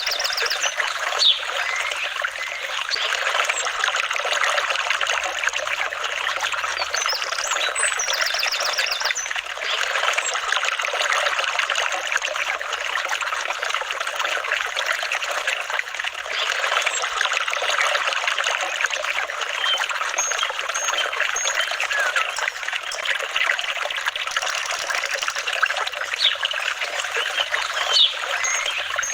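Flowing water trickling and babbling steadily.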